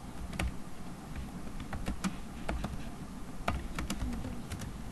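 Typing on a computer keyboard: irregular single keystrokes, a short phrase being typed, with small pauses between the clicks.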